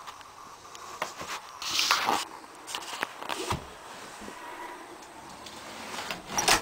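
Handling noise from a handheld camera on the move: scattered clicks, knocks and rustles, with a longer rustling burst about two seconds in and a sharp click near the end.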